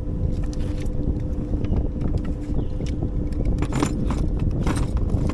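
A boat motor runs with a steady hum over a low rumble. A few short rattles and clicks sound about four and five seconds in.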